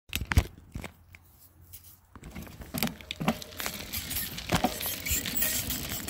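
A few sharp knocks of the camera being handled, then from about two seconds in a bicycle starting to roll along a rail trail: a building hiss of tyre and wind noise with scattered crackles and clicks.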